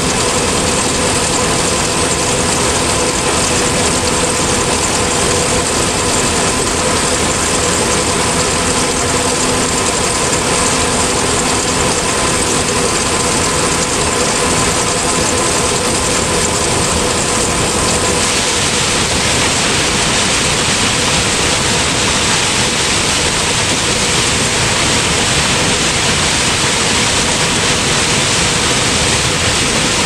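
John Deere combine harvesting corn, heard from its corn head: steady machine noise with a held hum. About eighteen seconds in the hum drops out and a brighter, hissier noise takes over.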